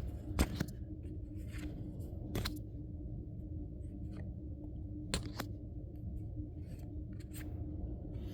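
Trading cards being handled and flipped through by hand: scattered light clicks and slides of card against card, over a faint steady hum.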